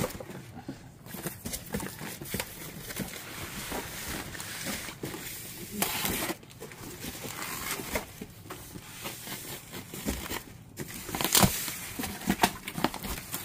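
Cardboard box being handled, its packing tape slit with a box cutter and its flaps pulled open: irregular scraping, rustling and knocks of cardboard, with louder rasps about six seconds in and again near the end.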